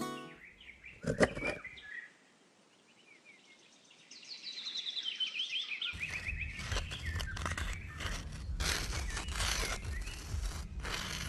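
Small birds chirping in short repeated calls that slide downward. There is a single knock about a second in. From about six seconds on, a louder rough crackling noise with a low rumble takes over.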